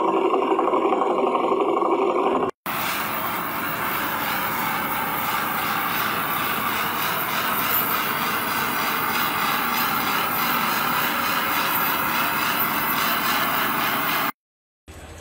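A small spinning wheel whirring with a steady, fluttering hum, cut off abruptly about two and a half seconds in. Then comes a long, steady hiss from a welding torch as a rod is welded along a metal seam.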